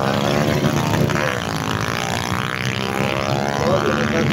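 A vehicle engine revving, its pitch rising and falling back about three times.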